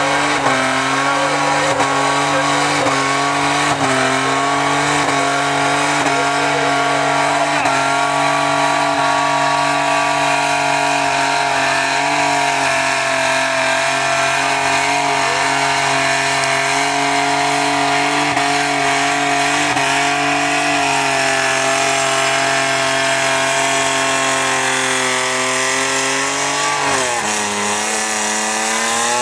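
Holden Commodore ute doing a burnout: the engine is held at steady high revs while the rear tyres spin and squeal. Near the end the revs drop sharply, then climb again.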